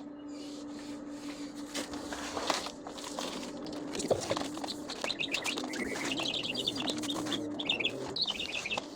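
Songbirds chirping outdoors, with quick runs of high chirps in the second half. Underneath is a steady low hum and a few light knocks.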